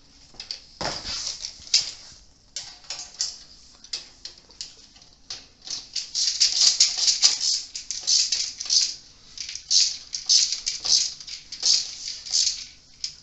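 Ratcheting screwdriver clicking in quick runs as it tightens nuts onto bolts, with small metal clinks of the hardware. The ratcheting gets busier and louder about halfway through.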